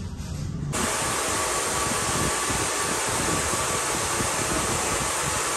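Two handheld hair dryers running at once, a steady blowing rush as hair is blow-dried; the sound starts abruptly under a second in.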